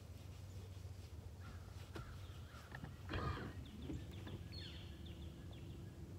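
A short bird call about three seconds in, with a few fainter calls around it, over a low steady hum.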